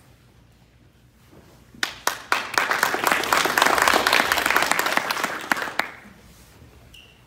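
Applause from a small group of people: a few single claps about two seconds in, building quickly into dense clapping that stops about four seconds later.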